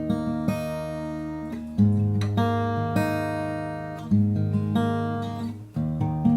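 Cort CJ5X acoustic guitar being played: chords struck and left to ring, fresh ones about two seconds in, about four seconds in and near the end, with lighter picked notes in between.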